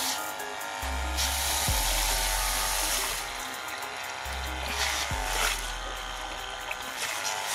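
Background music over a small 12 V diaphragm water pump running, its motor whirring, while water from the outlet hose splashes into a metal basin.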